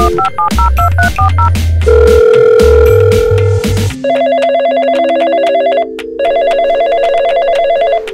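Phone keypad beeps, then a steady tone, over background music. About four seconds in, an electronic telephone ring starts: a toy telephone on a Robocar Poli toy car trilling in two bursts of about two seconds with a brief pause between.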